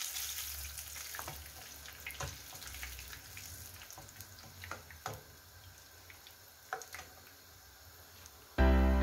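Hot oil sizzling in a frying pan as fried chicken pieces are lifted out with a metal spoon, with a few sharp clinks of the spoon against the pan; the sizzle fades as the pan empties. Background music starts just before the end.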